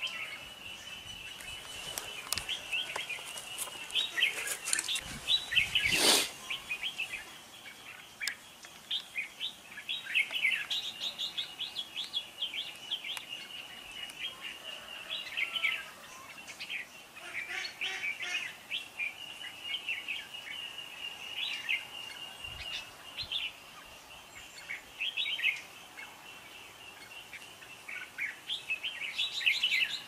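Red-whiskered bulbuls chirping and singing in quick, short phrases over a steady high-pitched tone; one sharp click about six seconds in.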